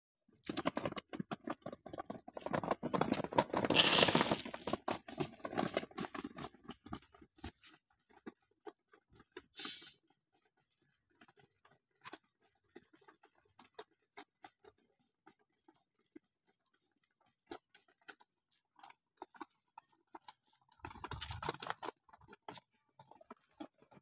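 Domestic pigeons pecking food off a plastic mat: a quick patter of beak taps, dense for the first seven seconds and then sparse. There is a louder rustling burst about four seconds in and another shortly after twenty seconds.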